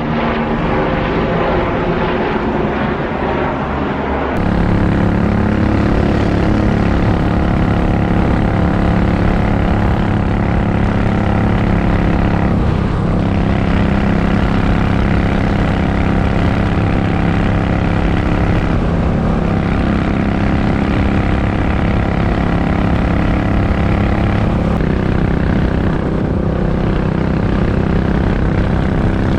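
For the first four seconds or so, a helicopter passes overhead. Then a Royal Enfield Continental GT 535's 535 cc single-cylinder engine runs steadily at cruising speed on a motorway, with wind noise, dipping briefly about thirteen seconds in.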